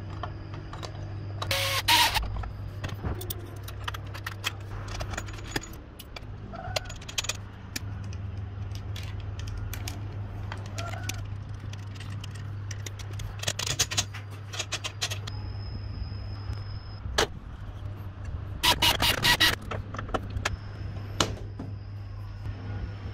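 Small metal parts and tools clinking and rattling as they are handled, in a few short clusters, over a steady low hum.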